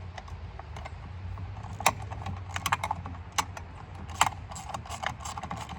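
Irregular light metallic clicks and clinks of tools and parts being handled on an outboard motor's exposed powerhead, over a steady low hum.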